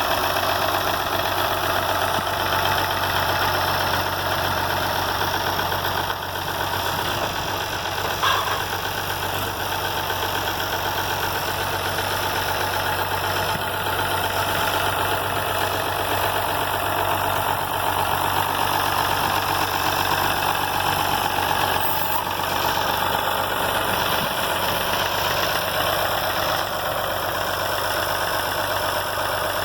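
Tractor engine running steadily at a constant speed, with one brief click about eight seconds in.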